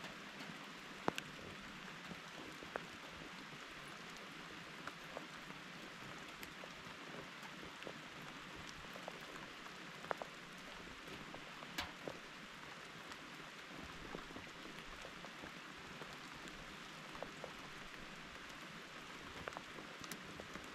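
Steady rain falling, an even hiss with scattered louder drops ticking at irregular intervals.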